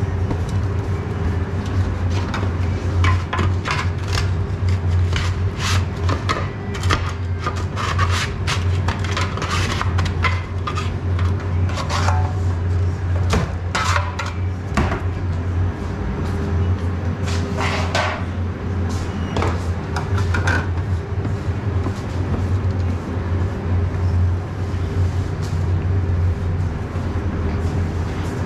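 Steady low machine hum, with a busy run of scrapes, knocks and clatter from a scraper and cloth working over a stainless steel counter and a baking tray. The scrapes thin out after about twenty seconds.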